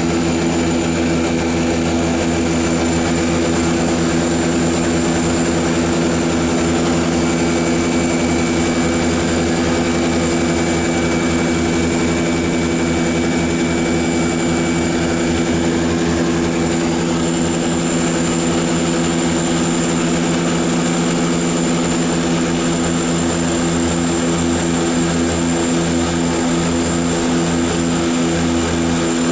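A De Havilland Canada DHC-6-300 Twin Otter's two PT6A turboprop engines and propellers heard from inside the cockpit on approach: a steady, loud propeller drone with a high, constant turbine whine above it.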